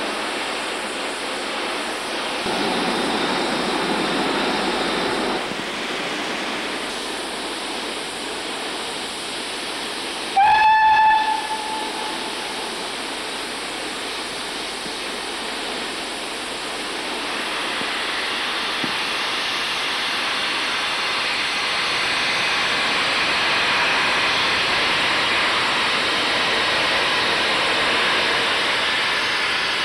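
BR Standard Class 4 tank steam locomotive hissing steam, with one short whistle blast about ten seconds in that rises slightly at its start. The hiss grows louder from about halfway through as the cylinder drain cocks blow.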